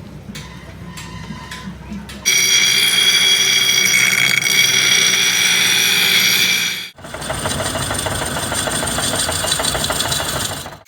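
A power grinder comes on suddenly about two seconds in and runs with a steady high whine. About seven seconds in it drops out for a moment, and a second stretch of loud machine noise with a fast pulsing follows.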